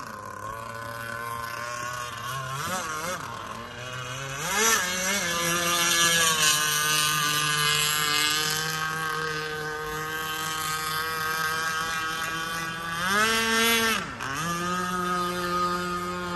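Pro Boat Shockwave 55 SS radio-controlled speedboat running at speed. Its motor note climbs a few seconds in and then holds high and steady. Near the end it sweeps up sharply and drops away, then settles again.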